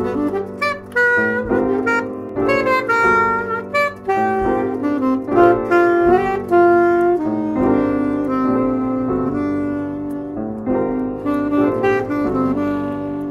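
Saxophone playing a melody of held, changing notes over piano chords, a slow jazz-folk tune.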